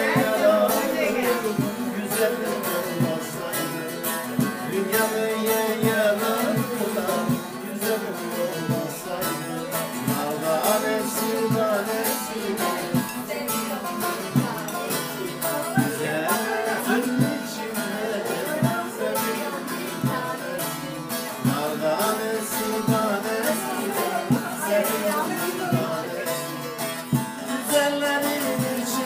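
Bağlama (Turkish long-necked saz) played with quick, steady plectrum strokes, carrying a folk melody.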